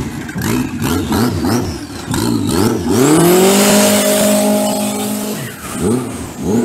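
A Toyota 3S turbo four-cylinder engine in a jet boat, revved in a series of quick throttle blips, then opened up hard about three seconds in and held at high revs as the boat pulls away, before a few more short blips near the end.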